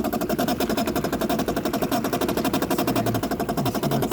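2008 Bosch dishwasher filling, with a rapid, even rattling buzz throughout: the water inlet valve chattering as water comes in, a 'zzz' that the owner takes for cavitation at a faulty inlet valve.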